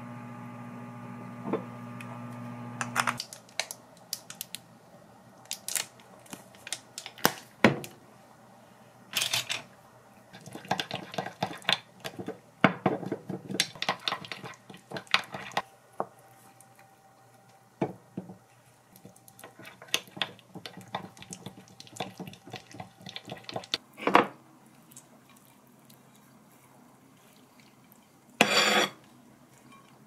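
Microwave oven humming steadily, cutting off about three seconds in. After that, irregular clicks, taps and scrapes as a wasabi tube is squeezed and a spoon stirs sauce in a ceramic condiment dish, with a brief louder clatter near the end.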